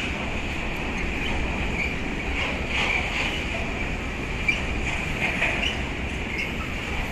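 A train rolling along the rails: a steady low rumble with a high wheel squeal that flickers on and off.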